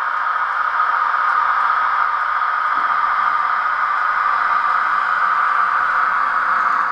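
A steady hiss with a faint, constant hum underneath, unchanging throughout.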